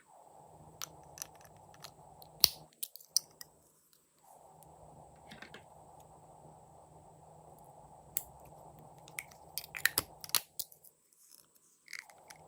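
Glossy slime being squeezed and worked by hand, giving irregular sharp pops and clicks. One loud pop comes about two and a half seconds in, and there is a quick flurry of clicks near ten seconds.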